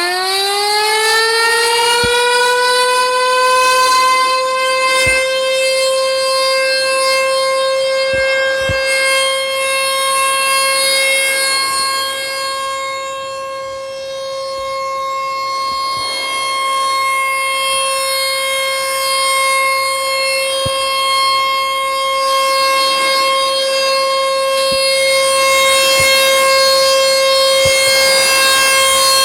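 ASC T-128 tornado warning siren finishing its wind-up in the first couple of seconds, then holding one steady, loud wail. Its loudness sags and comes back around the middle.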